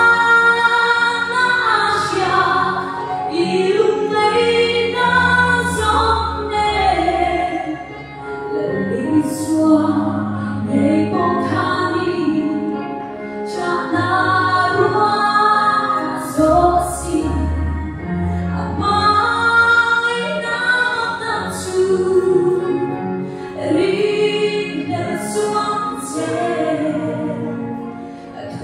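A woman singing a gospel song solo into a microphone, amplified through the hall's sound system, over an accompaniment of sustained low bass notes.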